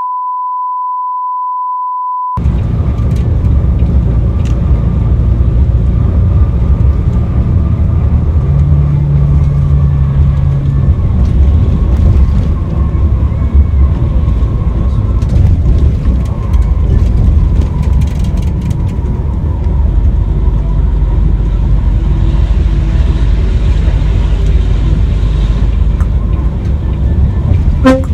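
A steady, pure electronic beep for about two seconds, then a bus running on the road with a continuous heavy engine and road rumble. A low steady tone sounds for about two seconds near the middle.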